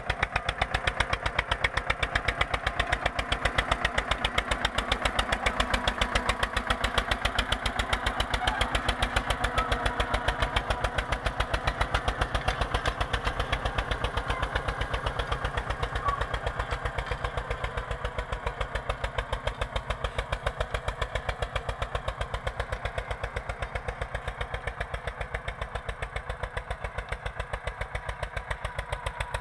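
Eicher 242 tractor's diesel engine running under load as it pulls a 16-disc harrow through stubble soil, with a rapid, even beat of firing pulses. It grows somewhat fainter in the second half as the tractor draws away.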